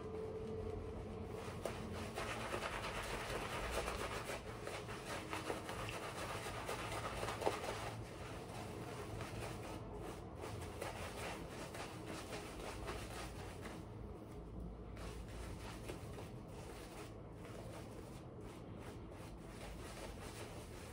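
Shaving brush scrubbing and swirling Cella shaving-soap lather on a bearded face: a soft, continuous bristly rubbing, a little louder in the first several seconds.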